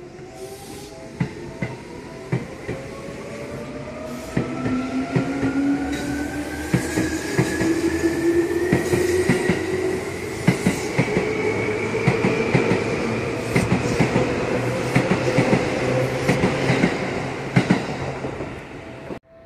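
Yellow Seibu Railway electric train pulling away from the platform. Its motor whine rises in pitch as it gathers speed, then levels off, and the wheels clack over the rail joints faster and louder. The sound cuts off abruptly near the end.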